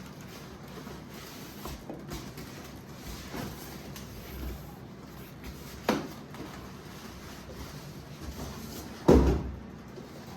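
Kitchen handling sounds: a few light knocks, then a sharper knock about six seconds in and the loudest, a heavier thud with a short ring-out, about nine seconds in, like a cupboard or drawer being shut.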